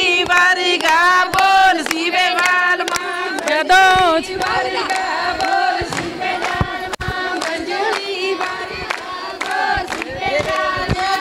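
A group of women singing a Punjabi folk boli together for giddha, with hand claps going on throughout.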